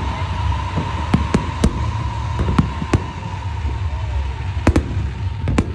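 Fireworks bursting: sharp bangs and pops at irregular intervals, some in quick pairs, over a steady low rumble.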